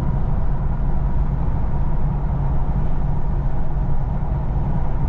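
Steady low rumble of engine and road noise from inside a vehicle driving along a road, with a faint steady hum above it.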